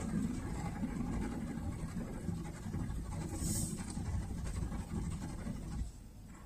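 Honda N-BOX's three-cylinder engine idling, a low rumble heard from inside the cabin, which drops away sharply near the end.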